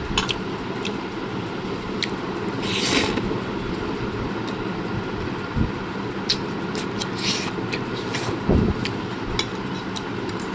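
Steel fork and spoon clicking and scraping against a plate of noodles: a few sharp clinks and a longer scrape about three seconds in, over steady low background noise.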